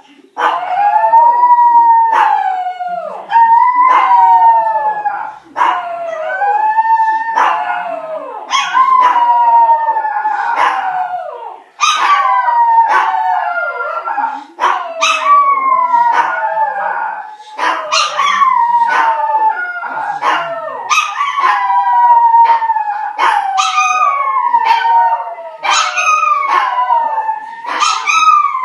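Several dogs howling together: long, overlapping howls that slide up and down in pitch, one voice taking over as another fades, with no break.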